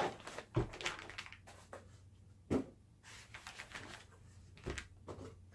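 White foam packing blocks being slid off a plastic-wrapped solar charge controller: foam rubbing and plastic rustling, with a few light knocks as the unit is handled on the table.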